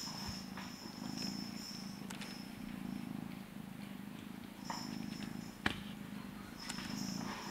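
Blue British Shorthair kittens purring, a steady low purr that swells and eases slightly, with one sharp click about three-quarters of the way through.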